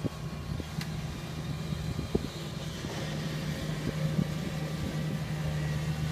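Kubota tracked combine harvester's diesel engine running steadily as the machine crawls along a rutted dirt track, a steady low engine hum. Short clanks are heard about two seconds in and again about four seconds in.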